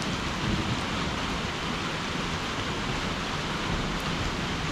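Steady rain falling on a wet asphalt road, an even hiss.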